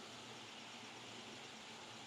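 Faint, steady outdoor hiss with nothing distinct in it: quiet background ambience.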